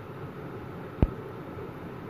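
Steady low background noise with a single short knock about a second in.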